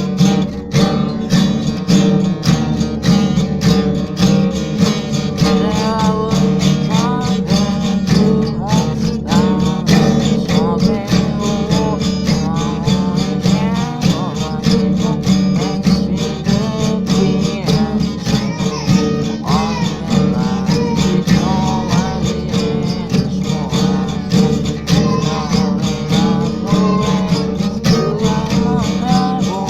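Country song with strummed acoustic guitar and a singing voice, at a steady even strumming rhythm.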